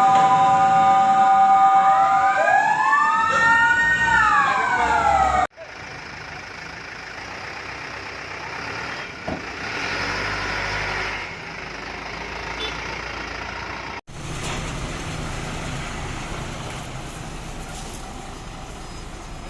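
Fire engine siren holding a steady tone, then sweeping up and down in pitch, cut off abruptly about five seconds in. Much quieter street and vehicle noise follows, with a low steady engine hum in the last few seconds.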